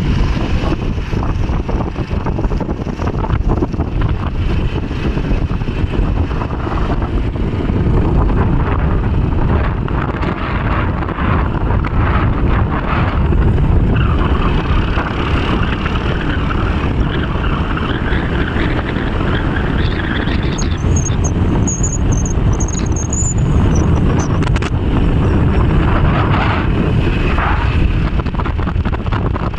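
Wind buffeting the microphone over the steady noise of a moving vehicle.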